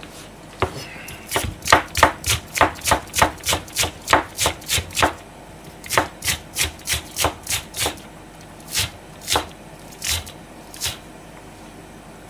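Kitchen knife slicing green onion (negi) on a white plastic cutting board: a run of quick, even cuts about four a second, a second run after a short pause, then a few slower single cuts near the end.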